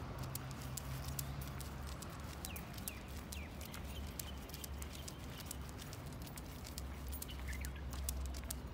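German shepherd's claws clicking on paving stones as it walks, many quick irregular clicks, over a low steady hum.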